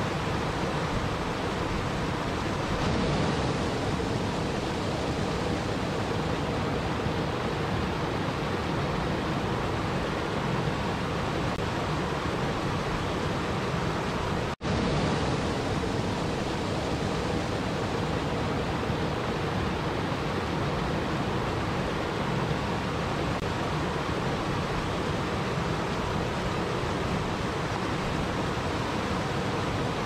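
Small waterfall pouring over boulders into a river: a steady rush of falling and splashing water, with a split-second dropout about halfway through.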